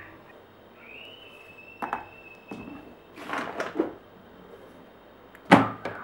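Laundry being loaded into a Bosch front-loading washing machine: soft rustling of clothes and small clicks, with a faint thin high tone for about two seconds near the start. Near the end come a couple of sharp plastic clunks from the machine's door or detergent drawer.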